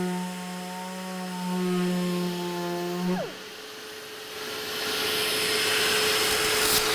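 Random orbital sander with a P400 aluminium oxide disc running on a gelcoat GRP panel with a steady hum, switched off about three seconds in, its pitch dropping away as it stops. A steady rushing hiss then builds up.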